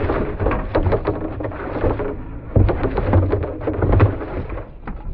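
A freshly landed largemouth bass thrashing in the boat: a run of irregular knocks, rattles and deep thumps, with a couple of louder ones around a second and a half in and about four seconds in.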